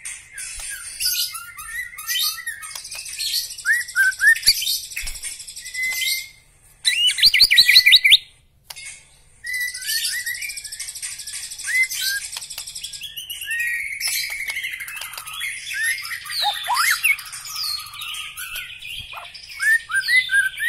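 White-rumped shama (murai batu) singing a long, varied song of rapid trills, chattering runs and whistled up-and-down notes. It breaks off briefly twice, once after about six seconds and again near nine seconds, and its loudest passage is a fast run of repeated notes just before the second break.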